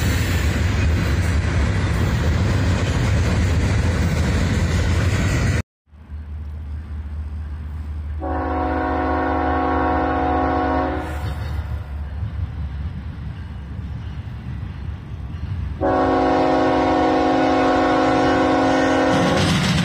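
A passing freight train's steady rumble, cut off suddenly. Then an approaching BNSF diesel locomotive sounds its horn in two long blasts, each a chord of several notes, over a low rumble that grows near the end as the locomotive draws close.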